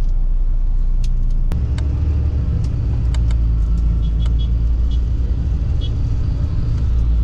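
Inside a moving highway bus: a steady low rumble of engine and road noise, with a few faint clicks and rattles. A sharp knock comes about a second and a half in, and the rumble grows heavier after it.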